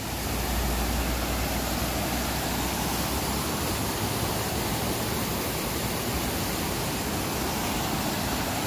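Mountain creek rushing over rock steps in a waterfall cascade: a steady, even rush of water, with a deeper low rumble in the first few seconds.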